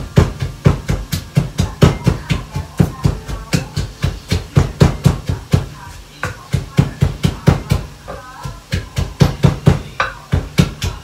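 Wooden pestle pounding garlic and chilies in a clay mortar: steady heavy thuds, about three a second, pausing briefly about six seconds in and again about eight seconds in.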